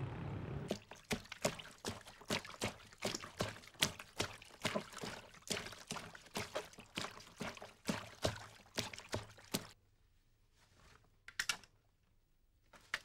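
Clothes being washed by hand in a basin of water: quick, irregular splashing and sloshing, about two or three strokes a second, which stops about three-quarters of the way through, leaving only a couple of faint splashes.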